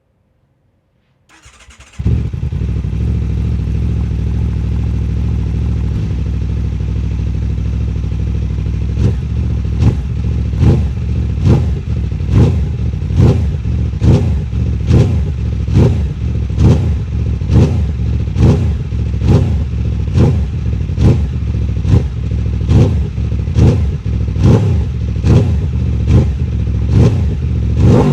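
Aprilia RSV4 V4 engine through an SC-Project S1 titanium slip-on exhaust. It starts up and idles steadily, then from about nine seconds in it is blipped with quick throttle revs at a steady rhythm, about one a second, with a bigger rev at the end.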